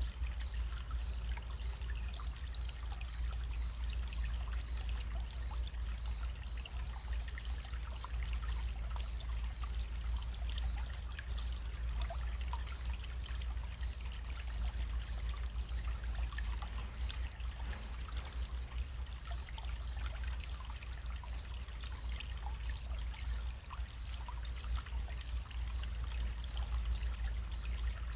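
Small stream running and trickling, a steady babble with many fine splashes and gurgles, over a steady low rumble.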